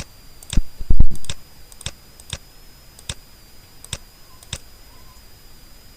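Computer mouse and keyboard clicks, about eight sharp clicks spaced irregularly, with a louder cluster of heavy knocks about a second in, over a faint steady high-pitched whine.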